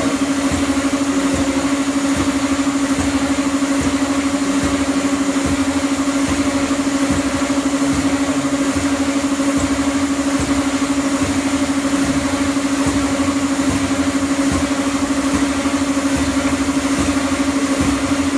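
Escalator step-cleaning machine running on the moving escalator steps: a steady, loud machine hum at one constant pitch over a rushing noise.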